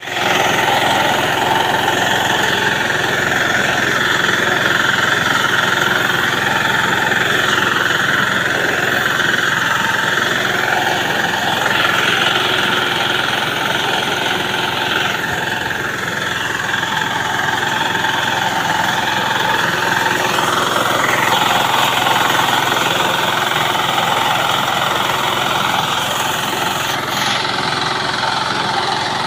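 The 6 hp single-cylinder diesel engine of a walk-behind reaper runs steadily under load as the machine cuts standing grain.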